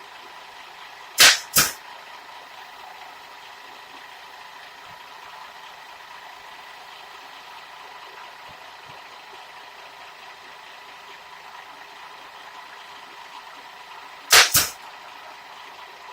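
Pneumatic nail gun firing two quick shots about a second in and two more near the end, as the trim piece is fastened in place, over a faint steady hum.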